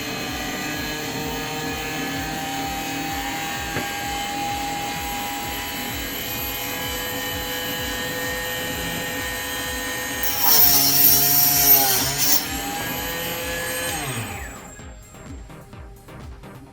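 Mini benchtop cutoff saw's small motor running with a steady whine. About ten seconds in, the blade cuts through rigid water-cooling tubing for about two seconds with a loud hissing grind, and the motor's pitch dips under the load. Near the end the motor is switched off and winds down, its whine falling away.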